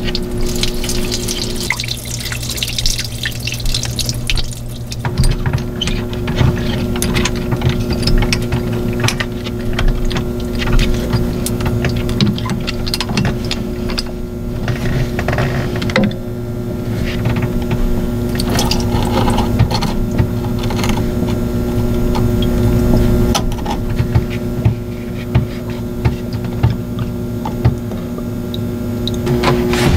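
Water sloshing and dripping as a marine air-conditioner sea strainer is opened and its fouled basket lifted out, with scattered clicks and knocks from handling the metal fittings. A steady electrical hum runs underneath and drops out for stretches.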